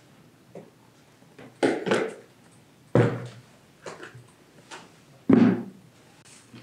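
Knocks and thuds of kitchen utensils and dishes being handled and set down on a work surface during baking prep, with fainter clicks between. There are four louder knocks, the strongest about three seconds in and just past five seconds.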